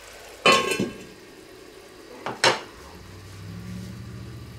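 A stainless steel lid clanks down onto a cast iron skillet and rings briefly, followed a couple of seconds later by two quick knocks. About three seconds in, a low steady hum starts.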